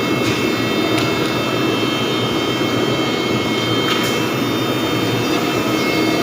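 Surface planer running steadily: an even, loud rushing noise from the spinning cutter block, with high steady whine tones and a few light ticks, about a second in and again about four seconds in.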